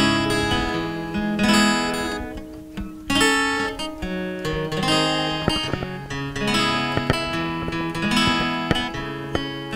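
Acoustic guitar played solo, chords ringing and changing every second or so, as the instrumental introduction to a song.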